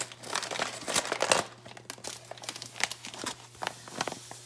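Crinkling and rustling of a sugar bag being handled while a half cup of sugar is measured out, a dense run of crackles in the first second and a half, then scattered clicks and light knocks.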